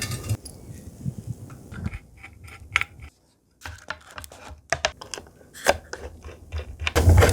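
Small metallic clicks and taps of screws and a screwdriver, scattered and irregular, as round-head screws are driven to fasten the keyboard's PCB into its aluminium case.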